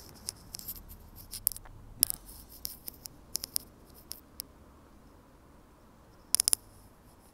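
Scattered light clicks and ticks over a quiet background, with a quick run of four sharp clicks about six and a half seconds in.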